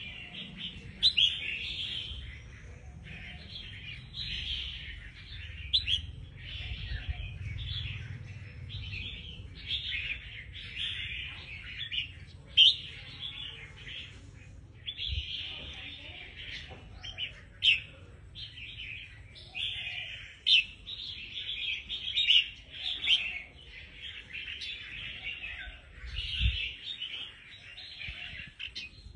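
Caged red-whiskered bulbul singing and chattering almost without pause, with loud sharp notes every few seconds.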